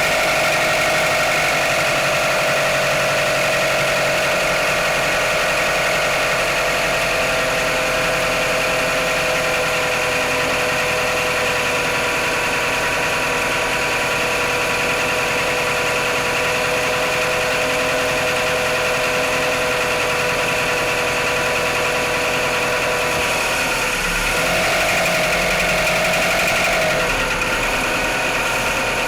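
Mitsubishi 4G63 inline-four idling just after a cold start, the idle slowly easing down and briefly wavering up and back about twenty-four seconds in. The owner hears knocking from the engine on cold start.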